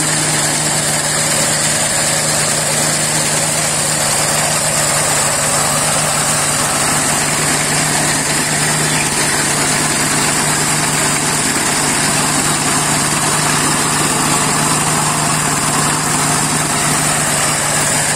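Petrol-engine-driven pine-cone processing machine running steadily under load, crushing and sieving cones fed continuously into its drum. It gives a constant engine hum with a dense steady noise and a high hiss above it.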